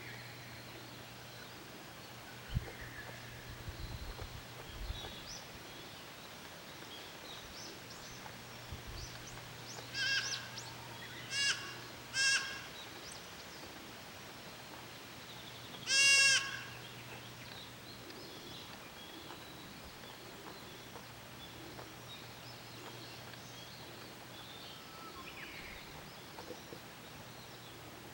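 Goat bleats: three short bleats in quick succession about ten seconds in, then a single longer, louder bleat a few seconds later. A few soft low bumps come before them.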